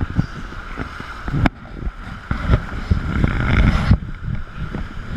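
Whitewater rapids rushing and splashing against an inflatable raft and over the camera, a heavy rumble broken by irregular knocks. About a second and a half in there is a sharp knock, and the sound turns muffled for a couple of seconds.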